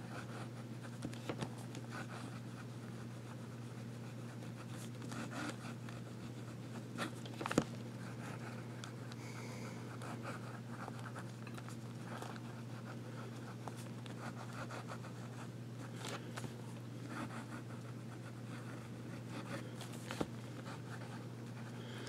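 Conklin Duraflex Elements fountain pen's medium nib writing on Tomoe River paper: faint scratching strokes of handwriting with light ticks, one sharper tick about seven and a half seconds in, over a steady low hum.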